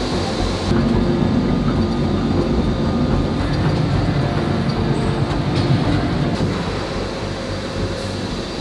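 Steady, heavy mechanical rumble of industrial machinery running, with a faint steady whine on top.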